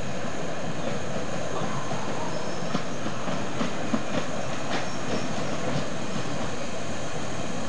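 A 10.25-inch-gauge 2-4-2T tank steam locomotive approaching with its train of carriages: a steady rush of noise with scattered clicks and knocks from the train on the track.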